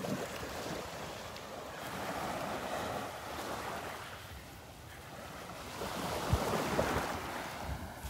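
Small waves washing onto a sandy beach, the wash swelling twice, with wind buffeting the microphone.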